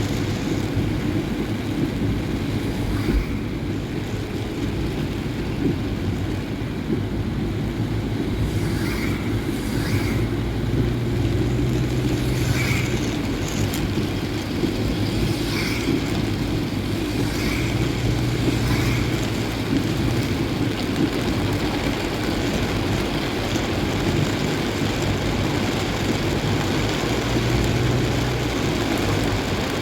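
A road vehicle driving in heavy rain: steady engine and tyre noise on a wet road, with the hiss of rain and a low hum that swells and fades a few times.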